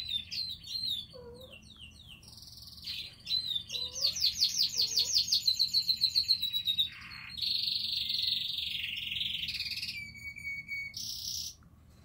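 Canary song played through a television's speakers: quick chirps and trills, with a fast run of repeated notes about four to six seconds in and then a long, buzzy trill.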